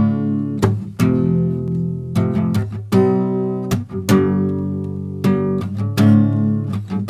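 Music: acoustic guitar strumming chords in a steady rhythm, with no singing.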